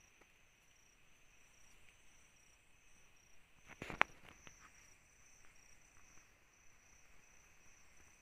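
Night insects trilling in a high, steady pulsing tone. About four seconds in, a short burst of rustling ends in a sharp crack.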